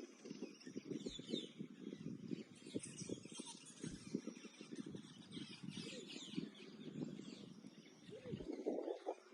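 Many birds chirping and calling at once, with short high chirps and sweeps over a busy lower chatter.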